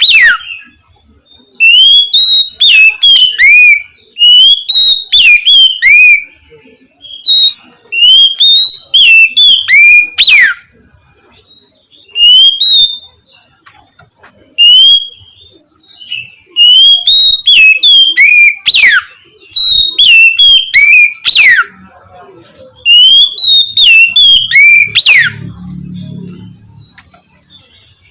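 Oriental magpie-robin (kacer) singing its loud, clear whistled 'ngeplong' song in repeated phrases of rising and falling whistles, several ending in a steep downward sweep, with short pauses between phrases.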